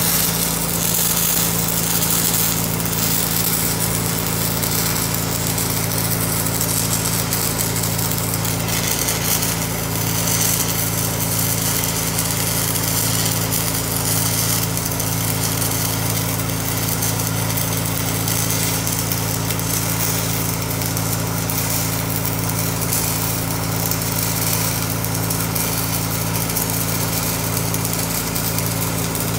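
Electric arc welding on a steel tree-shear jaw: a continuous crackling, hissing arc over the steady drone of an engine running underneath.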